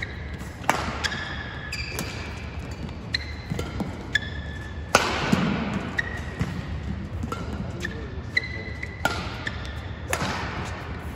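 Badminton rally: rackets strike the shuttlecock in sharp cracks a few seconds apart, the strongest about five seconds in and another near the end on a jumping overhead shot, each with a short echo. Between the hits, court shoes squeak briefly on the court mat and footfalls thud.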